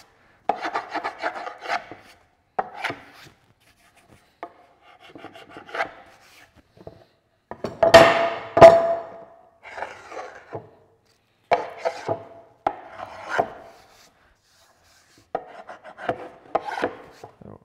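A scraper scraping squeezed-out, partly cured wood glue off the surface of a glued-up oak board, in short groups of rasping strokes with pauses between them. The loudest strokes come about eight seconds in.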